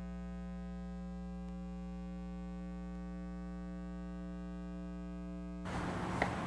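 Steady electrical mains hum in the recording's audio: a low, even buzz of several tones, with nothing else over it. Shortly before the end it gives way to a rise of hissy background noise as the next clip starts.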